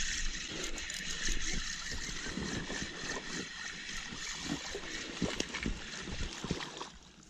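A fishing reel being cranked to bring in a hooked bass, the fish splashing at the surface near the end.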